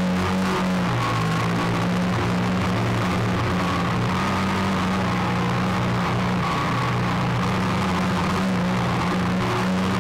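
Motor and propeller of a small RC aircraft, heard from its onboard camera, running steadily with small shifts in pitch as the throttle changes, over a constant rush of air.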